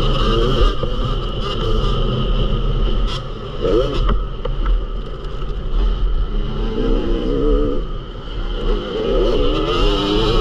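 Yamaha YZ250 two-stroke motocross bike's engine revving hard on and off the throttle, its pitch rising and falling, with brief easings around two-and-a-half, five and eight seconds in. A low wind rumble buffets the bike-mounted microphone.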